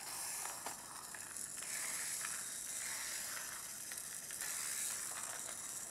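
Battery-powered Robocar Poli toy car running along its plastic track: a steady hiss from its small motor and rubber wheels, with a few light clicks.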